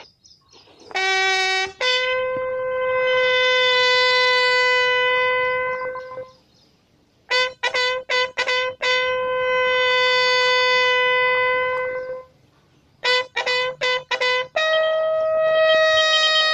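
A bugle sounding a CRPF bugle call. A short low note leads into a long held note. Then come two runs of quick repeated notes, each ending in a long held note, the last one higher.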